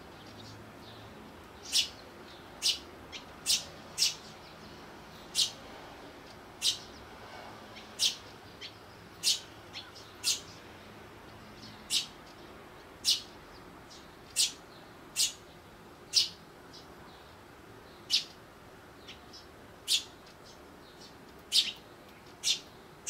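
Eurasian tree sparrows chirping: short, sharp, high single chirps, roughly one every second or so at an uneven pace.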